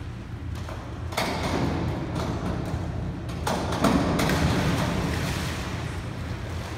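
Springboard diving board knocking and rattling as a diver bounces and takes off, then the splash of her head-first entry into the pool about four seconds in, with the noise slowly dying away.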